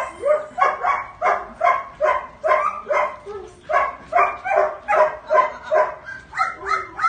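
Dog barking steadily, about two short barks a second, without a break.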